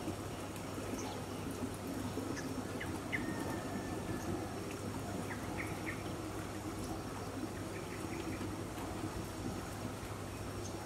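Tropical garden ambience: scattered short bird chirps and calls, one with a longer level whistle about three seconds in, over a steady rushing background and a low hum.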